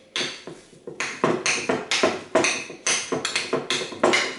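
A spoon knocking and clinking against the side of a bowl as a chia pudding is stirred, about three sharp ringing knocks a second.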